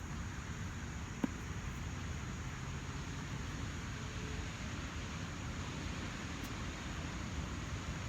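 Steady outdoor wind noise, with a single short, sharp click about a second in: a golf club striking the ball on a chip shot.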